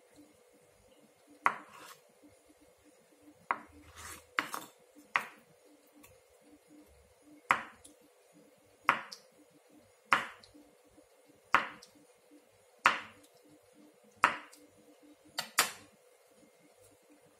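Kitchen knife cutting down through a block of tofu and knocking on a wooden cutting board: about a dozen single strokes, a second or so apart.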